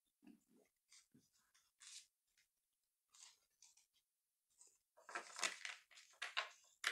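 Tarot cards sliding and rustling faintly against a cloth-covered table as they are handled, then from about five seconds in a quick run of papery flicks and rustles as a deck is shuffled by hand.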